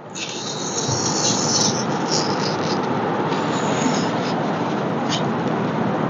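Foam-cutter blade slicing through a thermocol (polystyrene foam) sheet: a continuous scratchy rasp, with sharper squeaky strokes coming and going.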